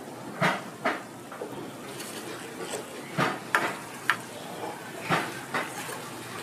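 Metal tongs clinking against a metal pan while sugar-coated twisted donuts (kkwabaegi) are handled, about seven sharp clinks at uneven intervals.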